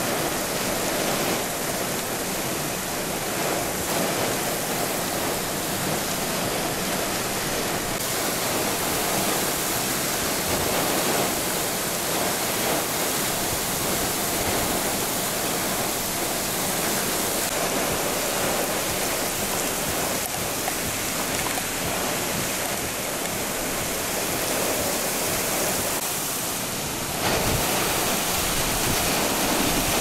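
Heavy wind-driven rain and high winds from a severe thunderstorm squall line, a steady loud rush of rain on pavement. Near the end it abruptly gets louder and deeper.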